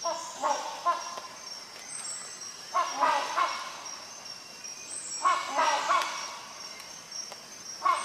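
Rhinoceros hornbill calling in short bouts of two or three loud notes, a bout about every two and a half seconds.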